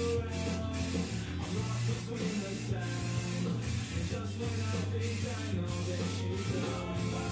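Aerosol spray-paint can hissing as it sprays, in passes broken by short gaps, over background music.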